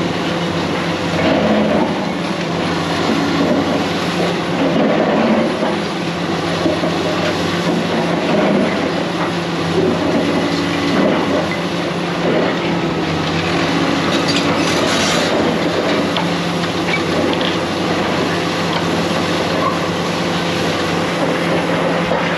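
Heavy diesel machinery running steadily, with a continuous clatter of metal clanking and scraping over the engine's hum.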